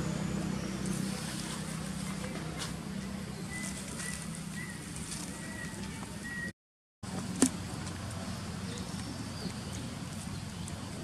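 Steady low hum of outdoor background noise. It drops out completely for a moment about six and a half seconds in, and a single sharp click follows just after.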